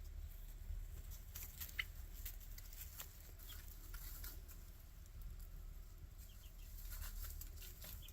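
Young chickens, about a month old, peeping and clucking now and then: short high chirps at irregular moments over a low steady rumble.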